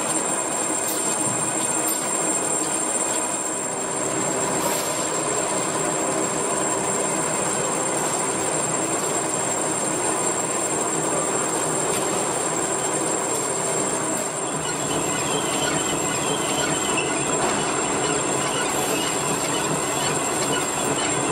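Toilet roll / kitchen towel rewinder line running: steady mechanical noise of the paper converting machinery, with a faint high whine running through it.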